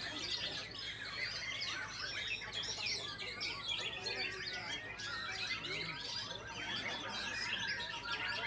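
White-rumped shama (murai batu) singing among other caged songbirds: a dense, overlapping chorus of rapid chirps, trills and whistled phrases that never pauses.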